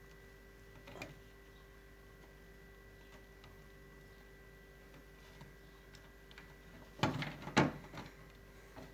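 Faint click about a second in, then a few sharp plastic knocks and clicks about seven seconds in, as the plastic service flap over the drain pump filter at the foot of a Siemens washing machine is prised open.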